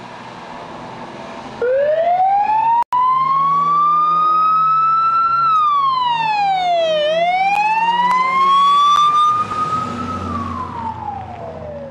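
Fire truck siren switching on about two seconds in and wailing: its pitch climbs, drops, climbs again and then slowly falls. Under it runs the rumble of the truck's engine as it pulls out.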